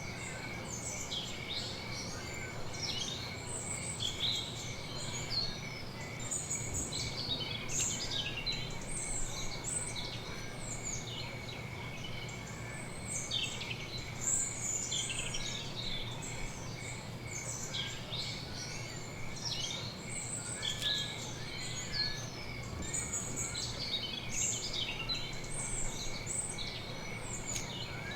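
Many small birds chirping and twittering continuously, with a steady, rapidly pulsing high trill underneath.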